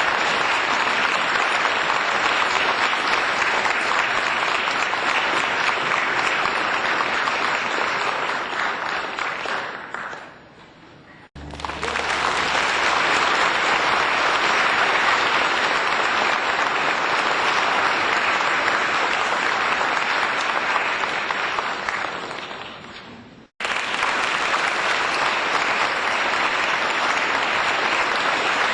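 Applause from many hands clapping at once, a dense continuous patter. It fades out about ten seconds in and a fresh round starts abruptly a second later. That round fades out near twenty-three seconds and another starts sharply right after.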